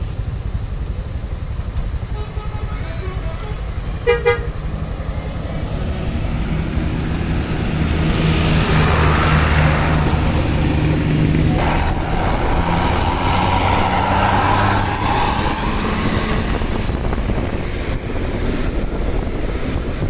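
Tour bus driving past close by with its engine running, sounding its Basuri telolet horn: a short toot about four seconds in, then a louder stretch of horn and engine as it goes by.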